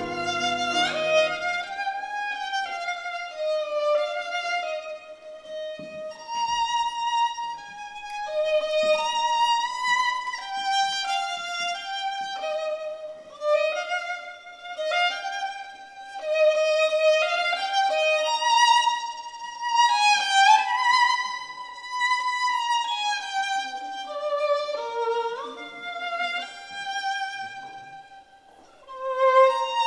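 Solo violin sight-reading a lyrical, flat-key melody with vibrato and small slides between notes, no accompaniment.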